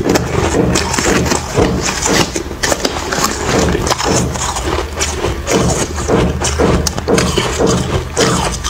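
Close-miked crunching of frosty crushed ice being bitten and chewed, a dense run of crisp crackles, with a metal spoon scraping and scooping through the ice in a plastic tub.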